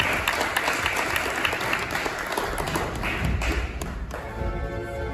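Theatre audience applauding, a dense spatter of claps that dies away about four seconds in as the instrumental introduction of the song starts with held notes.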